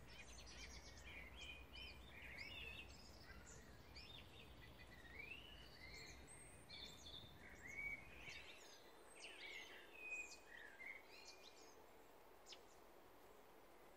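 Faint birdsong from several small birds, many short chirps and whistled notes, busiest in the first ten seconds and thinning out near the end. Under it is a low rumble, like wind on the microphone, that drops away a little past halfway.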